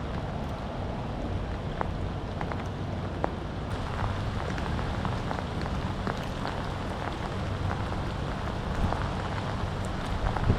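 Rain falling steadily: a constant hiss with many scattered sharp ticks of drops striking nearby.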